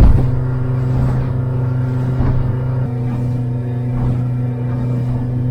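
Boat engine running steadily at cruising speed, a constant low drone, with a sharp thump right at the start and a few fainter knocks. The drone cuts off suddenly at the end.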